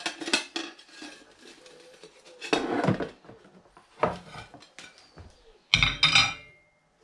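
Ceramic plates clinking and clattering as they are picked up and set down, in a few separate knocks. The loudest comes near the end, when a plate is set on the gas cooker's metal pan grate, leaving a brief ring.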